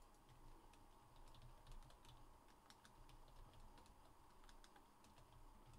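Faint, irregular keystrokes on a computer keyboard being typed on.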